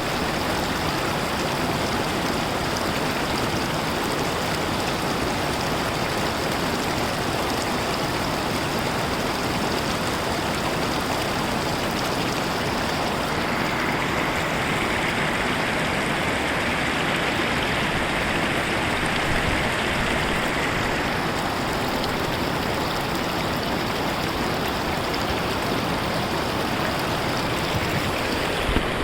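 Rushing mountain stream: a steady wash of water noise, turning a little brighter and hissier for several seconds in the middle.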